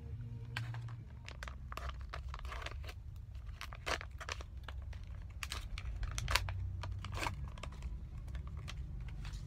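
A Garnier sheet-mask sachet being torn open and crinkled in the hands: a scattered run of sharp crackles and rips.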